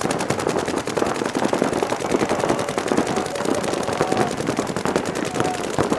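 Paintball markers firing fast strings of shots, several at once, making a dense, continuous stream of sharp pops.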